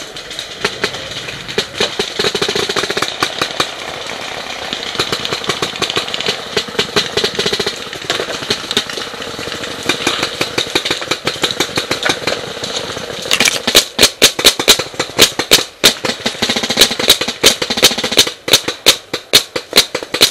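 Paintball markers firing, a dense run of rapid shots. About two-thirds of the way in a marker close by starts firing loud, sharp shots in quick irregular strings, several a second.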